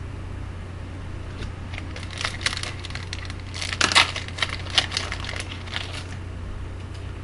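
Trading card pack being opened and its cards handled: a run of crinkles and sharp clicks, densest and loudest about four seconds in, over a steady low hum.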